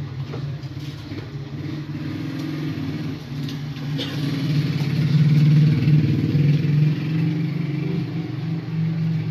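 A steady low engine hum that swells in level around the middle and eases off again, with a few faint clicks.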